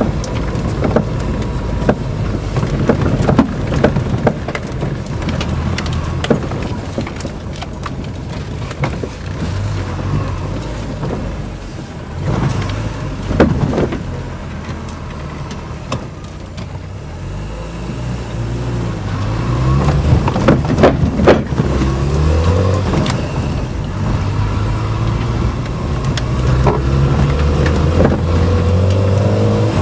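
Fiat Panda 4x4 engine running hard off-road, heard from inside the cabin, with knocks and rattles as the car crashes over the rough, muddy track. Through the second half the revs climb several times and drop back. The car is being driven hard to burn off carbon.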